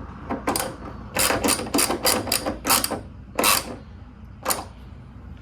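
Ratchet wrench with a 10mm socket tightening a bolt, its pawl clicking in a quick run of short strokes, most of them between about one and three seconds in.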